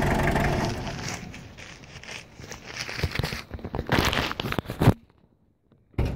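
Toyota 2L four-cylinder diesel idling, which the owner suspects has bad pistons and rings with heavy blowby; the engine sound fades out about a second in. Then crackling and rubbing from the phone's microphone being handled, loudest near the end, before a sudden cut to silence.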